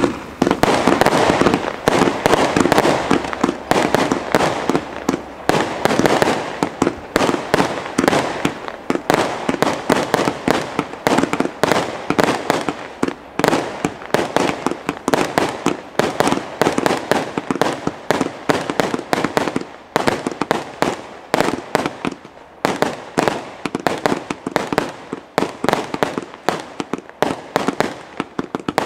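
Two Broekhoff Brocade Bomber 80-shot fireworks cakes firing together: a rapid, unbroken stream of sharp launch thumps and aerial bursts, several a second.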